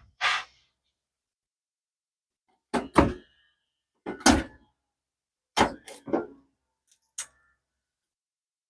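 Scattered short knocks and clunks of parts and tools being handled and set down, several single hits and a few quick pairs, with dead silence between them.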